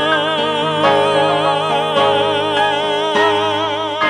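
Male singer holding a long final note with wide, even vibrato over sustained accompaniment chords, closing a show ballad.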